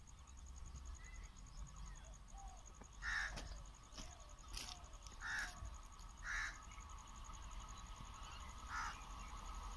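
A bird calling about five times, short separate calls a second or two apart, over a faint steady hum.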